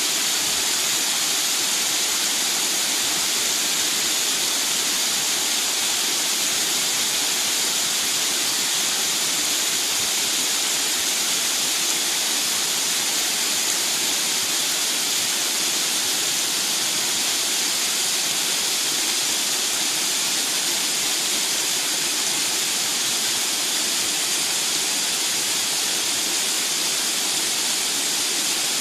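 Mountain stream rushing, a steady unbroken sound of flowing water.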